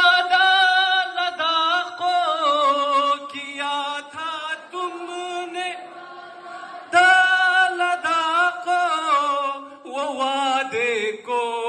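A man singing an Urdu ghazal unaccompanied into a microphone, drawing out long wavering notes. The singing eases off about five seconds in, and a strong new held note starts about seven seconds in.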